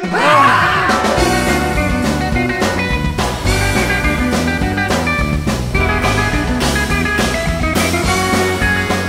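Rock-style background music with a steady drum beat over a stepping bass line.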